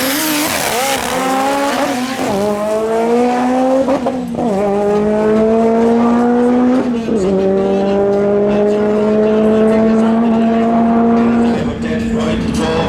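Mitsubishi Lancer Evolution drag car's turbocharged four-cylinder accelerating hard at full throttle down the strip. The engine note climbs through each gear, with three upshifts about two, four and a half and seven seconds in, and drops away near the end as the run finishes.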